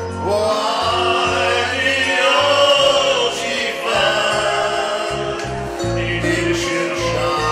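Several people singing a song together into handheld microphones over backing music, amplified through PA speakers.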